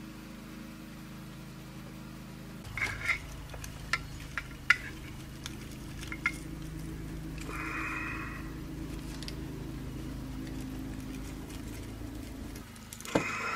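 Parts of an 858-series hot air gun handpiece being handled, with a few light clicks and clinks of the metal heater tube and ceramic heating element and a brief scrape about eight seconds in, over a steady low hum.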